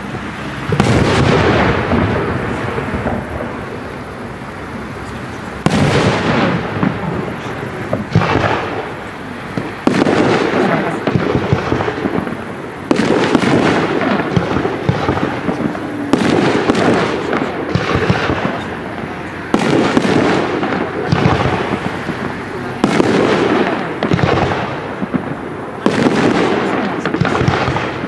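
Professional fireworks display: aerial shells bursting one after another every one to three seconds, each loud bang trailing off over a few seconds.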